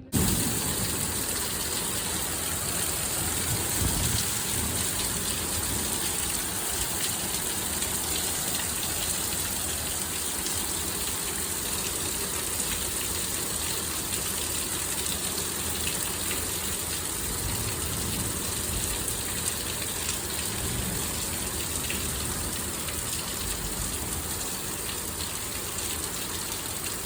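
Torrential thunderstorm rain pouring down, a dense steady hiss that starts abruptly and holds throughout.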